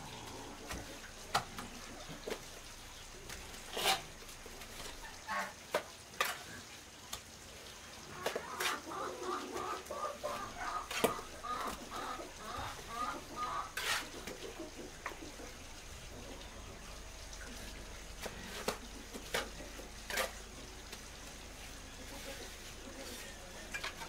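Chickens clucking, with a run of rapid clucks in the middle, among scattered sharp clicks and knocks.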